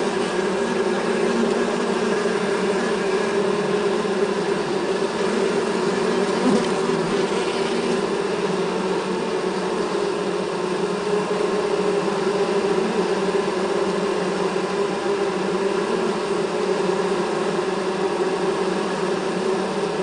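Many bees buzzing inside a beehive: a dense, steady hum.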